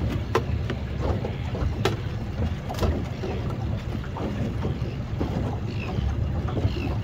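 Wind buffeting the microphone and choppy water against a small fishing boat, a steady low rumble and hiss, with three sharp clicks in the first three seconds.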